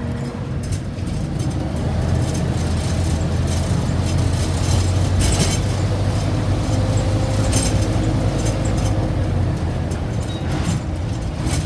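Road traffic: vehicle engines rumbling steadily, strengthening about two seconds in, with a few brief hisses from passing vehicles. No siren is sounding.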